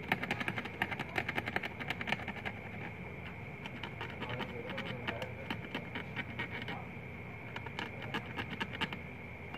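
Rapid clicks and scratches of a plastic pry pick worked along the edge of a Huawei Y9 Prime (2019) phone frame, prying the glued old LCD loose; a steady high whine runs underneath.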